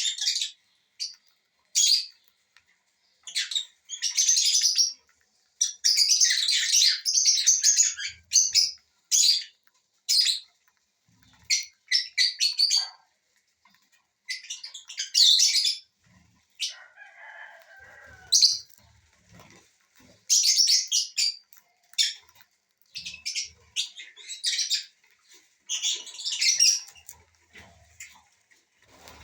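Small aviary parrots in repeated short bursts of shrill chattering and wing flapping, with gaps between them, and a lower call about halfway through.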